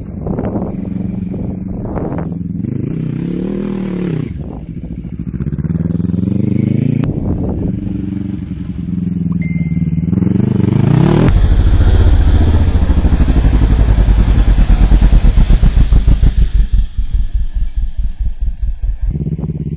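Quad bike (ATV) engine running, its pitch rising and falling again and again as the throttle is opened and eased off. About eleven seconds in the sound cuts abruptly to a louder, duller engine with a strong pulsing beat, then cuts again near the end.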